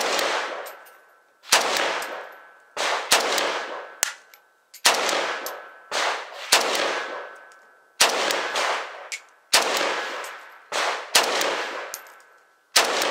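Norinco MAK-90 semi-automatic AK rifle in 7.62x39mm being fired shot by shot, about ten shots at an even pace of roughly one every second and a half. Each shot trails off in echo.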